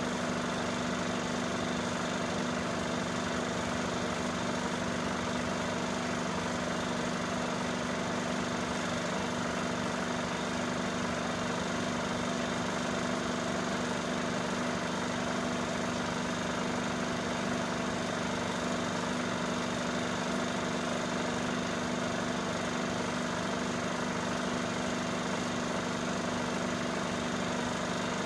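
Cine film projector running: a steady mechanical whirr and hum that does not change.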